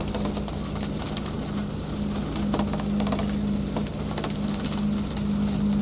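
Fishing boat's motor humming steadily, the low drone wavering in strength, with irregular splashes and spatters of water on the sea surface.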